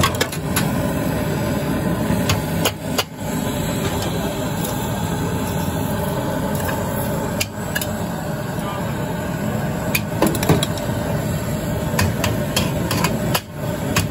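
Steady roar of a gas stove burner under pots of boiling milk tea, broken by sharp metal clinks of pots and a ladle being handled.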